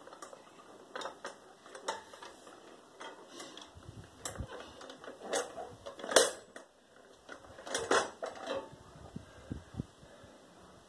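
Metal clicks and clanks from a hand-operated sheet-metal paper-log press as it is handled and the perforated press plate is worked loose and lifted out of the box. The loudest clank comes about six seconds in, with another cluster near eight seconds.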